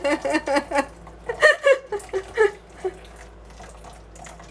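Milk pouring in a stream from an upturned carton into a bowl of batter that a wooden spoon is stirring. A voice talks over it for about the first three seconds, after which only the faint pouring and stirring are left.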